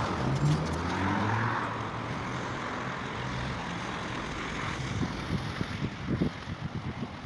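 A motor vehicle's engine accelerating, its low note rising in pitch over the first couple of seconds and then settling into a steady traffic rumble. Irregular low bumps come in near the end.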